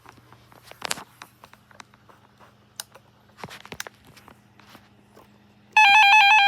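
Scattered clicks and rustles of handling, then near the end a loud electronic alarm tone that switches rapidly between two pitches starts abruptly.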